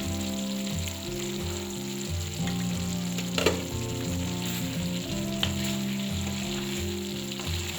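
Chicken liver and potato curry sizzling in the pan as it cooks down in the liquid from the livers, with one sharp tap about three and a half seconds in. Background guitar music plays underneath.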